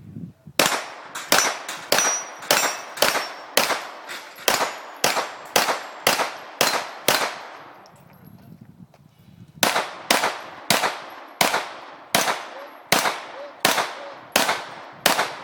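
Pistol fired rapidly at steel targets in two strings of shots, roughly two a second, with a pause of about two seconds between the strings. Each shot echoes, with a faint ring of the steel plates being hit.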